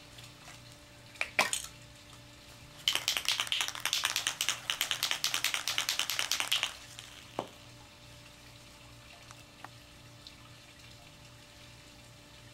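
An aerosol spray paint can being shaken, its mixing ball rattling rapidly for about four seconds, with a single knock shortly before and another just after.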